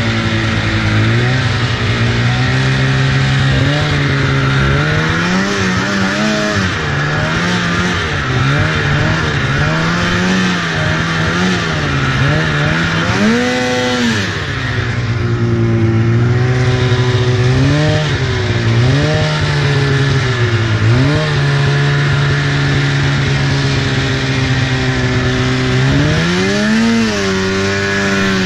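Polaris RMK 800 snowmobile's two-stroke twin engine running under throttle, its revs rising and falling over and over as the sled is ridden through snow. It revs highest about halfway through and again near the end.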